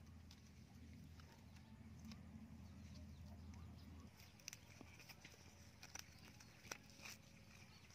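Near silence: faint outdoor room tone with a low hum in the first half, and a few faint sharp clicks in the second half.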